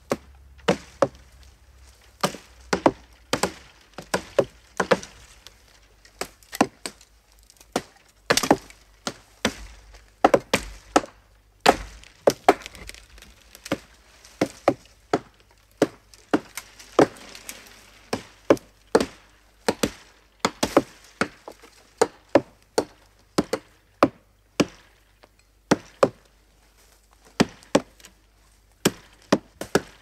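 Axe chopping into wood: sharp, separate strikes at an uneven pace, about one or two a second, some falling close together in pairs.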